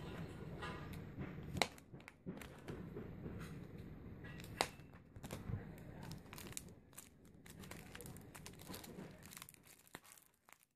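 Clear plastic packaging of a chocolate bar crinkling and crackling as it is turned over in the hands, with irregular sharp crackles.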